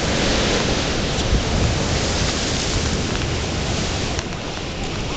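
Steady roar of ocean surf, with wind rumbling on the microphone.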